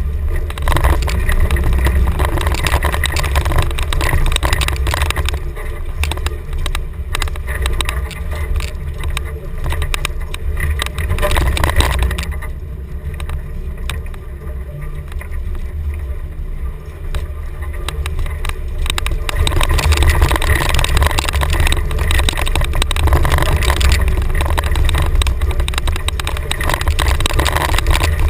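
1990 Chevrolet K5 Blazer driving off-road on dirt, its engine giving a deep, steady rumble. It eases off for several seconds around the middle and picks up again after.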